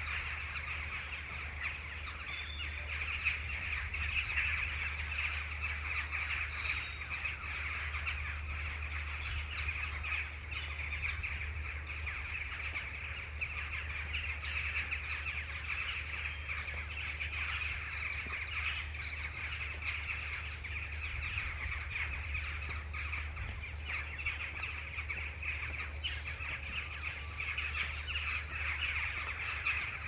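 A large flock of birds calling all together overhead, a steady dense mass of many overlapping calls with no single voice standing out.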